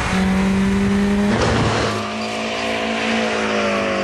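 Car engine running at steady high revs, with a short rough burst of noise about a second and a half in, after which the pitch steps up slightly.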